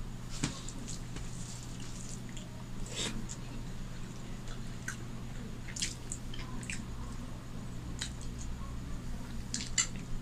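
Close-up eating sounds of rice and fish curry eaten by hand: fingers mixing and squishing rice on a steel plate, then wet mouth clicks and smacks as handfuls are eaten and chewed. These come as scattered, irregular clicks over a steady low hum.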